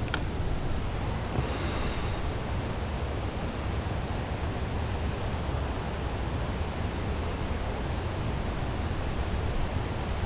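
Steady, low wind rumble buffeting the camera microphone. A single sharp click comes right at the start, and a brief hiss follows about a second and a half in.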